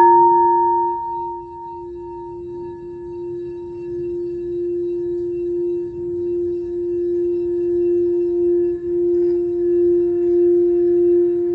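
Singing bowl ringing: one steady low tone with fainter higher overtones. It is loudest at the very start and fades over the first second and a half. It then slowly swells again with a gentle wavering pulse in its loudness.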